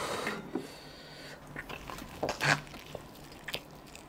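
Close eating sounds: sauce-covered food picked up by hand and bitten into, with scattered small clicks and smacks of chewing.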